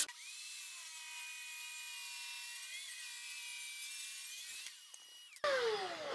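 Portable table saw running while ripping a board along the fence, its motor whine steady with a slight waver as the blade cuts. Near the end the whine falls in pitch as the saw is switched off and the blade spins down.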